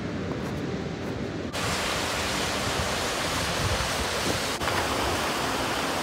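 Steady rush of fast-flowing river water and falls, an even hiss; about a second and a half in it switches to a louder, brighter rush.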